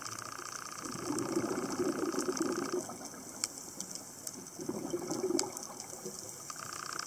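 Underwater sound of a scuba diver's exhaled bubbles gurgling in two bursts, one about a second in and another about four and a half seconds in, over a steady fine crackle of clicks.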